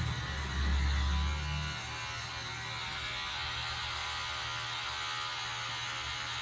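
Electric hair clipper running with a steady buzz while cutting hair. Background music with heavy bass notes plays over it and stops about two seconds in.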